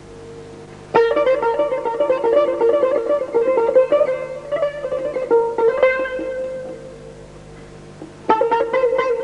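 Persian tar played solo. A held note dies away, then about a second in a hard stroke opens a fast run of plucked notes that gradually thins out, and another strong stroke starts a new phrase near the end.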